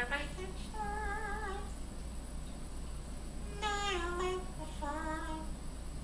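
Male Solomon Island eclectus parrot singing in a mimicked human voice: four short wavering phrases with pauses between them.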